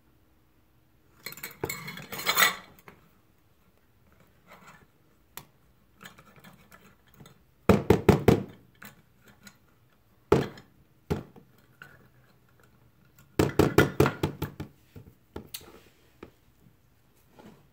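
A measuring cup knocked and scraped against a plastic storage tub to empty out foaming soap, then a spatula scraping in the tub: several short bursts of rapid clattering knocks, with quiet between.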